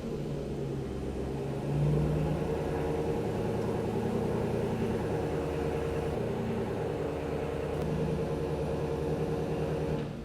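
Chevy Silverado pickup's engine running at idle just after being remote-started, with a brief rise in revs about two seconds in, then settling back to a steady idle.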